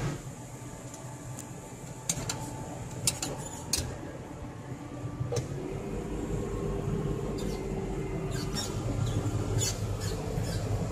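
Case IH Magnum 7140 tractor heard from inside its cab: the six-cylinder diesel engine running steadily with a low hum as it drives across stubble, over sharp squeaks and rattles from the cab, clustered about two to four seconds in and again near the end.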